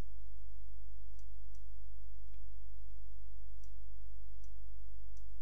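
Computer mouse clicking a handful of times, short sharp clicks scattered across a few seconds, over a steady low electrical hum that is the loudest thing throughout.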